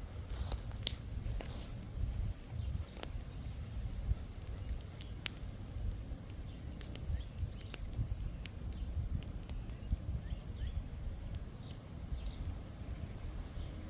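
Small backyard campfire of wood and charcoal crackling, with sporadic sharp single pops a second or more apart, over a steady low rumble.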